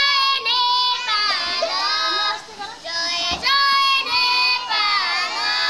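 A group of young children singing a song together in high voices, holding their notes, with a brief break about two and a half seconds in.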